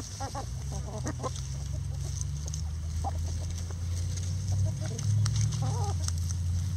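Backyard chickens clucking in short, scattered calls: a few together near the start, one about three seconds in, and a small run near the end. A steady low rumble underneath grows louder over the same stretch.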